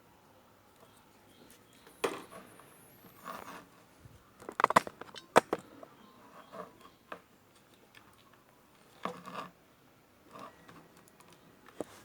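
Handling noises of repair work by hand: scattered clicks, taps and short scrapes of tools and parts, with a quick cluster of sharp clicks about five seconds in.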